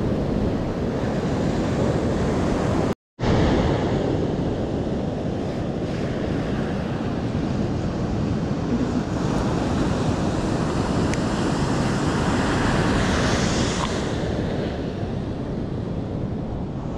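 Surf breaking and washing up a sand beach, with wind buffeting the microphone. The sound cuts out completely for a moment about three seconds in.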